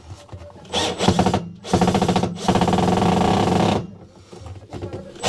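Small electric drill/driver spinning in two bursts: a short one about a second in, then a longer steady run of about two seconds.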